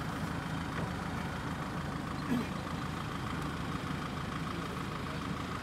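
Land Rover Defender engine idling steadily.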